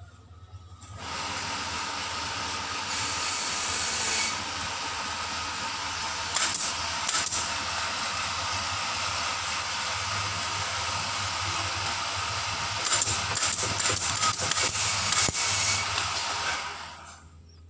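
A long continuous hiss of compressed air, starting about a second in and cutting off near the end, with scattered clicks along the way and a low steady hum underneath.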